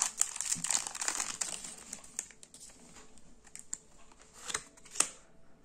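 A foil Pokémon booster pack crinkling as it is opened and the cards are drawn out, dense for about two seconds and then dying down. After that come a few scattered light clicks and taps as the cards are handled, the sharpest near the end.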